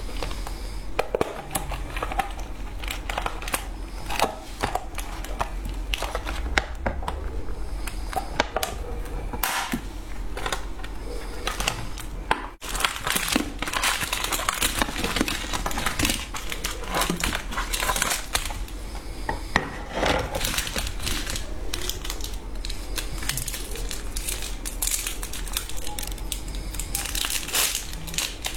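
Plastic candy wrappers being handled, crinkling and crackling in many short, irregular bursts, busiest about halfway through.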